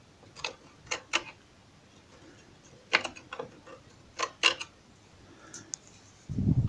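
A small knife scraping wet glue squeeze-out from the wooden joints of a log bandsaw box, in a handful of short, sharp scraping strokes. A low thump comes near the end.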